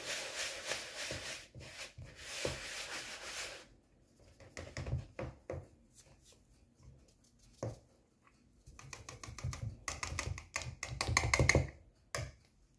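Wire whisk scraping and clicking in a bowl of fine semolina moistened with oil, a dry, crumbly mix. Brisk scratchy whisking at first, a few scattered taps in the middle, and brisk whisking again near the end.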